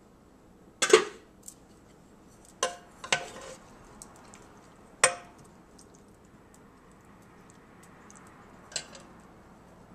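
Metal slotted serving spoon clinking against the cooker pot, about five sharp knocks with a short ring, the loudest about a second in, as ribs and gravy are scooped out.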